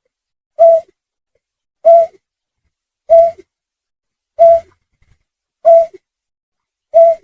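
Hunting lure recording of a snipe call: six short calls repeated at an even pace, about one every 1.25 seconds. Each call is a single mid-pitched note followed by a brief lower note.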